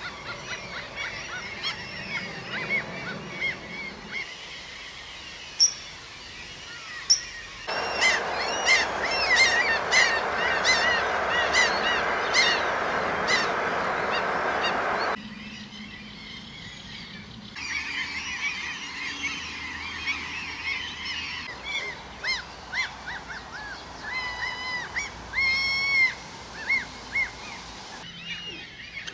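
Common gulls and Eurasian coots calling at a breeding site: many short, honking calls, at times several a second, most crowded in the middle stretch over a steady rushing noise. The background changes abruptly several times.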